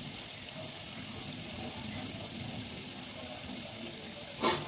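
Gujiyas deep-frying in hot oil: a steady hiss with light bubbling. Near the end, a single short, loud crack stands out above the frying.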